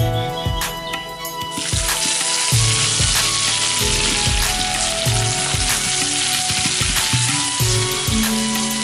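Sliced onions dropped into hot oil in a nonstick wok start sizzling about a second and a half in, and keep frying steadily as a spatula stirs them.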